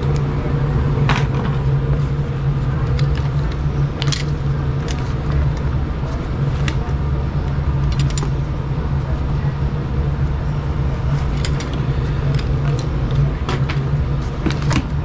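Steady low hum of a running furnace motor, with scattered irregular clicks and taps of hand tools on sheet metal.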